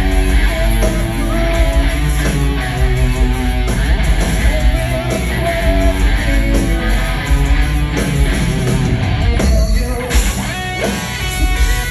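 Rock band playing live, electric guitar to the fore, loud and heavy in the low bass.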